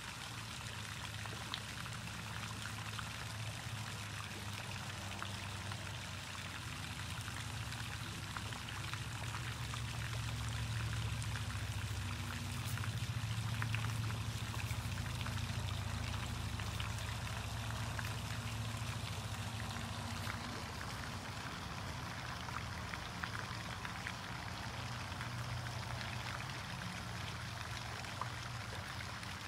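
Steady noise of running water, like a trickle or pour, with a low hum underneath that swells a little midway.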